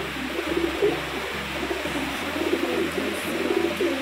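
Domestic pigeons cooing over and over, low warbling calls overlapping one another, over a steady hiss.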